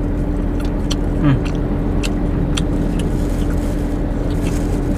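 Steady hum of a car's idling engine heard inside the closed cabin. A few light crackles of plastic bags and chewing on fried tofu balls sound over it.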